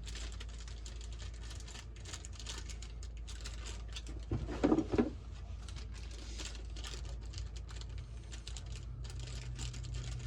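Crinkling and rustling of a plastic parts bag being handled as the kit's replacement parts are unpacked, with one brief louder muffled sound about halfway. A steady low hum runs underneath.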